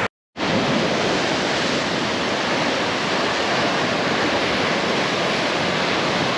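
Steady rushing noise of sea surf breaking on the shore, broken by a split-second silent gap just after the start.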